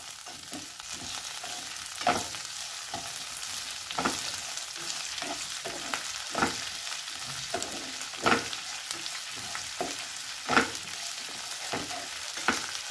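Lentils, shallots, garlic and dried red chillies sizzling in sesame oil in a frying pan, stirred with a slotted spatula that scrapes across the pan every second or two. This is the sauté stage of a chutney base.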